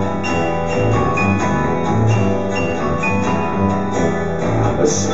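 Live rock band playing an instrumental stretch: guitar over a low bass note that pulses about once a second.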